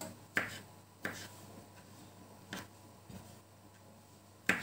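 Kitchen knife chopping champignon mushroom stems on a wooden cutting board: a handful of sharp knocks at uneven intervals, the loudest near the end.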